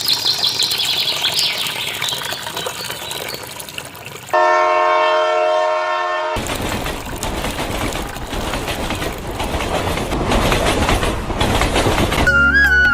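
A train passing, with a rattling, clattering rumble. The horn sounds a steady blast for about two seconds, a little over four seconds in.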